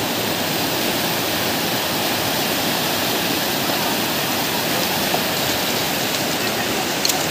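Muddy floodwater rushing fast over a road, a loud, steady sound of flowing water.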